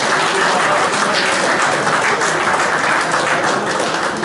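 A group of people applauding, a steady run of clapping.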